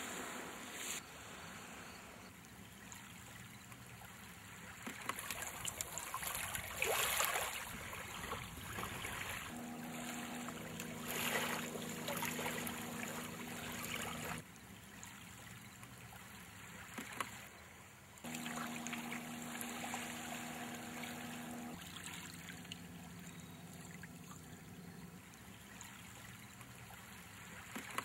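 Small waves lapping and washing on a sandy, pebbly beach, swelling louder a few times. A steady low hum comes in for two stretches in the middle, starting and stopping abruptly.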